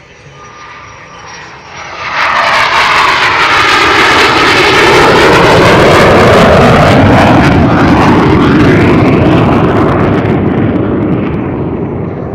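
Pratt & Whitney J52 turbojet of a TA-4J Skyhawk on a low pass: a faint high whine as it approaches, then a sudden loud jet roar about two seconds in, with falling sweeping tones as it goes by, fading away near the end.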